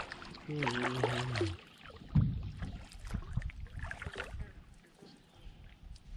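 Small knocks and water sounds from a canoe, with one sharp thump about two seconds in. A brief hum of a voice comes just before it.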